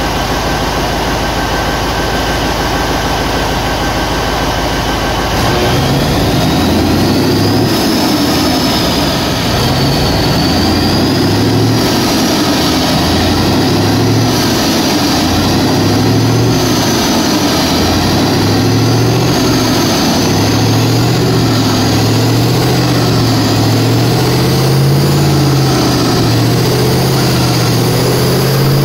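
Liebherr D9508 V8 diesel engine running on a test bench. It runs steadily, then about five seconds in its speed begins to rise and fall over and over, settling higher near the end, with a high whine rising and falling along with it.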